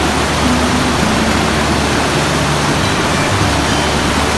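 Fast whitewater river rapids rushing over boulders: a loud, steady rush of water.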